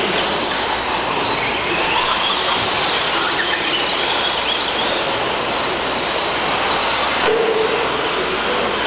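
Electric brushless RC stadium trucks racing: a steady dense din with high motor whines that rise and fall as the trucks speed up and slow down.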